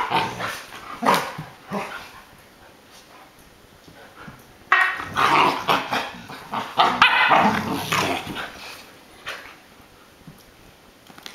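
An adult American Akita and an Akita puppy play-fighting, with barks and growls in bursts: a few in the first two seconds, then a longer run from about five to eight seconds in.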